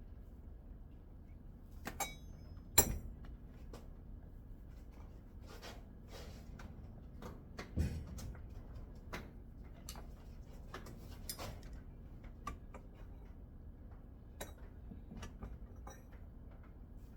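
Irregular clinks, clicks and knocks of metal coilover parts and tools being handled during assembly. The sharpest clink comes about three seconds in, and a duller knock comes near eight seconds.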